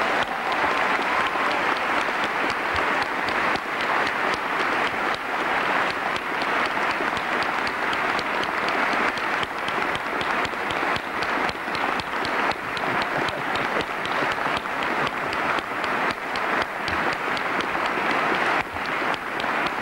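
Audience applauding, a steady sustained clapping of many hands.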